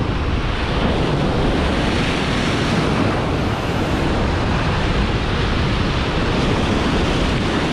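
Rough, heavy surf breaking and washing in, mixed with strong wind buffeting the microphone: a steady, dense wash of noise with no single crash standing out.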